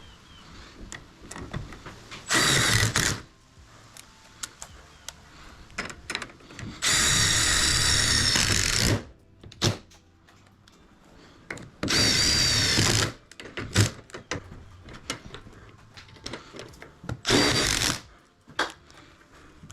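Power drill running in four short bursts, the longest lasting about two seconds, with a steady motor whine, and light clicks and knocks of handling between the bursts.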